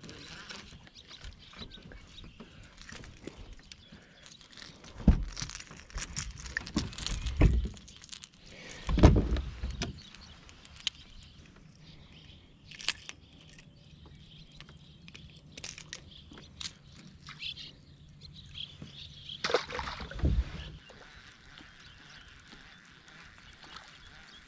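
Irregular knocks and heavy thumps of a fishing boat's deck and gear as a small white bass is reeled in, swung aboard and handled. The loudest thumps come about 5 and 9 seconds in and again near 20 seconds, with a faint low hum for several seconds in the second half.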